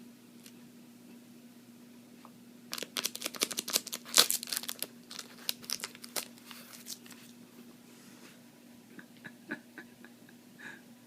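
Scotch tape crackling and tearing in quick irregular crackles for about four seconds, loudest about four seconds in, as a kitten pulls at tape stuck to it; a few lighter crackles follow near the end.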